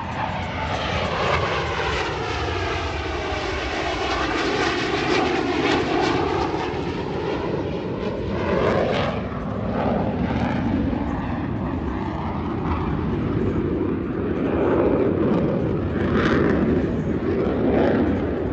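Blue Angels F/A-18 Super Hornet jets flying past. The jet engine noise sweeps down in pitch as they pass in the first few seconds, then keeps swelling and fading as the jets come and go.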